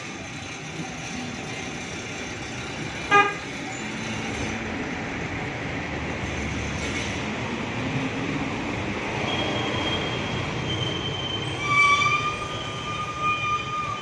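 A steady rumble of traffic, with a short horn toot about three seconds in and a long, steady horn blast near the end.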